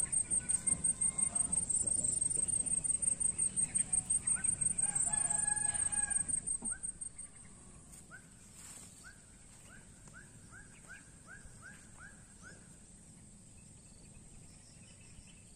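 Rural outdoor ambience. A high-pitched insect trill pulses rapidly and is the loudest sound, stopping about seven seconds in. A rooster crows around five seconds in, and afterwards a bird gives a string of about ten short rising notes.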